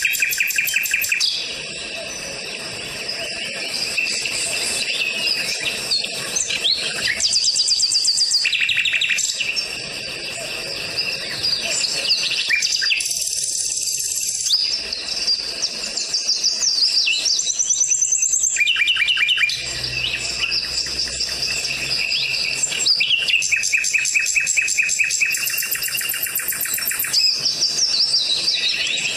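Small songbirds singing: a continuous run of high chirps and fast trills, the phrase changing every second or two.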